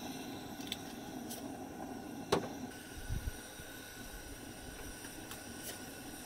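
Food cooking in a cast-iron Dutch oven on a gas camp stove: a steady hiss with a few faint ticks. A single sharp clink comes a little over two seconds in, followed by a couple of soft low thumps.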